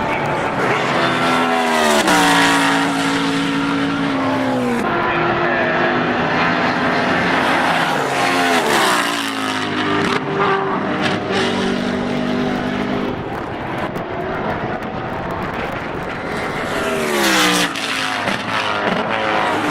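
BMW Z4 GT3 race car's V8 engine running loud at racing speed, its pitch dropping steeply four times with steady stretches in between.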